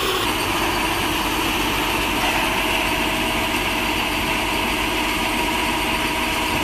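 Tow truck's engine running steadily at a constant speed, a loud even drone with a steady hum.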